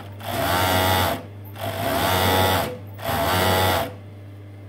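MO-6714S industrial overlocker stitching a side seam in knit fabric, running in three bursts of about a second each with short pauses between, over a steady low hum.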